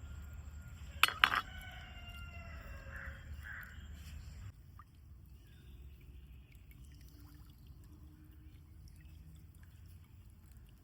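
Two sharp knocks about a second in, followed by a rooster crowing once: a long call that falls slightly in pitch and cuts off suddenly a few seconds later.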